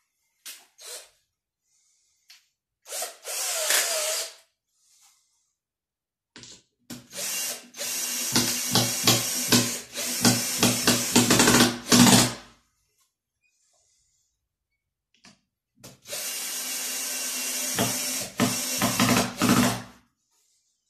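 Cordless drill-driver driving screws through a wooden batten into wall plugs. It gives a few short trigger blips, then runs hard in two long stretches of several seconds each, with a steady motor hum and rapid knocking, and each stretch cuts off suddenly.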